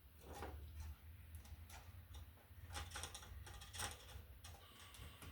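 Faint scattered clicks and light scrapes of hand tools and wire being worked at a wall receptacle, five or six small ticks over a low steady hum.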